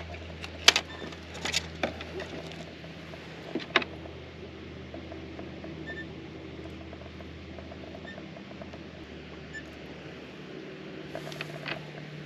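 Hands rigging a pilchard bait on a bait needle and wire hook rig: a few sharp clicks and knocks in the first four seconds, over a steady low hum.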